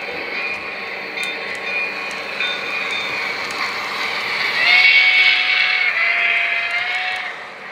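An O-gauge model steam locomotive's sound-system whistle gives one long blast of about two and a half seconds, a little past halfway through, over the steady running noise of model trains on three-rail track.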